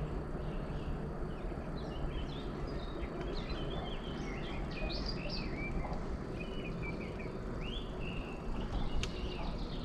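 Songbirds singing, with many short chirping phrases one after another, over a steady low rumble of wind and rolling noise from a moving bicycle. A single click sounds near the end.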